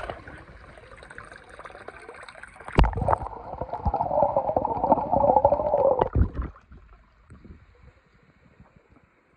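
Swimming-pool water: a sharp splash about three seconds in, then a few seconds of muffled bubbling and gurgling heard under the water, which dies away to a faint hiss.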